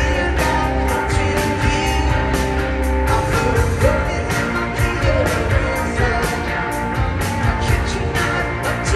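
Rock band playing live through a concert PA: electric guitars, bass and drums with a steady beat of cymbal hits, and a lead voice singing over them.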